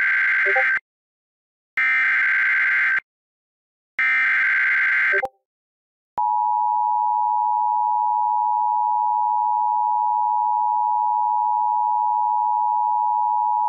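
Emergency Alert System broadcast tones for a flash flood warning. Three bursts of the SAME digital header's buzzing data squawk, each about a second long and a second apart, are followed about six seconds in by the steady two-tone EAS attention signal.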